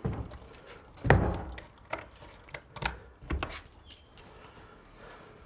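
Keys jangling and a series of clicks and knocks as a wooden door is unlocked and opened, with a heavy thump about a second in.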